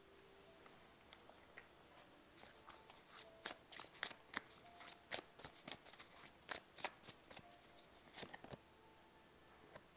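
A deck of tarot cards being shuffled by hand: a quick run of light, papery card clicks and flicks that starts about two seconds in, is busiest in the middle, and stops shortly before the end.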